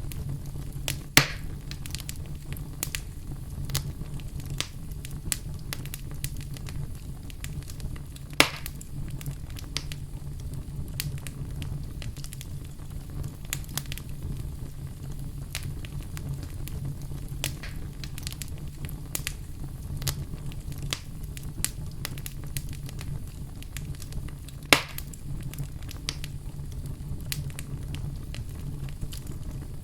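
Fire crackling in a fireplace: a steady low rumble of flames with frequent small crackles, and three sharp, louder pops, about a second in, about eight seconds in, and late on.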